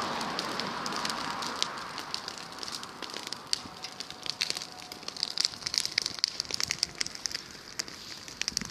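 Bonfire of dry grass and straw burning, crackling with many sharp pops that grow denser after the first couple of seconds.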